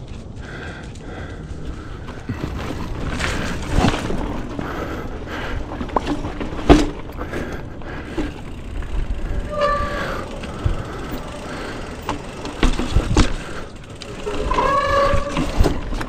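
Bicycle rattling and clicking over rough ground, with sharp knocks from bumps. Two short squeals come about ten and fifteen seconds in.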